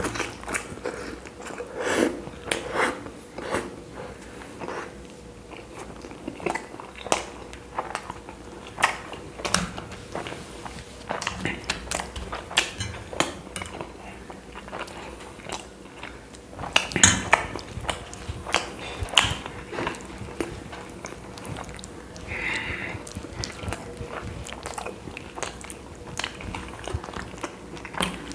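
A man chewing and biting chapati flatbread close to the microphone, with irregular wet mouth clicks and smacks.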